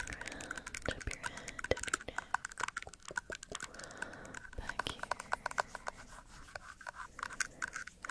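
Fingernails tapping and scratching close on an ASMR microphone, a quick, irregular run of crisp clicks.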